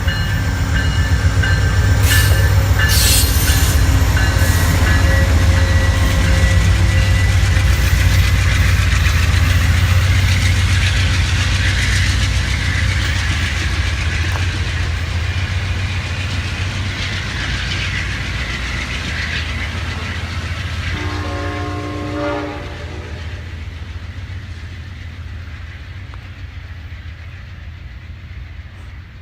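Amtrak passenger train passing, its wheels rumbling and clattering on the rails, loudest in the first ten seconds and then fading as it moves away. Its horn sounds once, briefly, about 21 seconds in.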